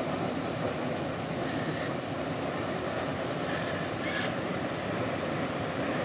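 Steady rush of falling water from the Lower Düden Waterfall, which drops off the sea cliff into the Mediterranean.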